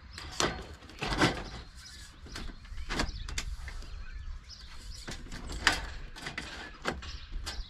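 Metal eave flashing being handled and tapped into place by hand: about eight separate knocks and clanks, spaced irregularly, over a low steady rumble.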